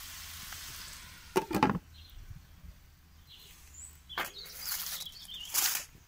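Stir-fried cabbage, carrots and meat sizzling in a frying pan, with a short clatter about a second and a half in as the glass lid goes on. A few more handling knocks and rustles follow near the end.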